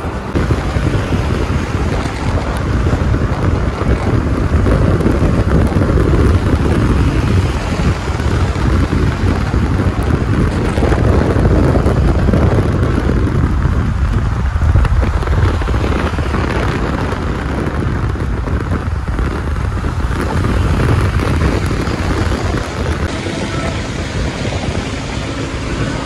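Car on the move: steady, loud low rumble of road and wind noise, with no clear engine note or music.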